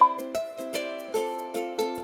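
Background music: a light plucked-string tune with a steady beat, the chord changing about a second in.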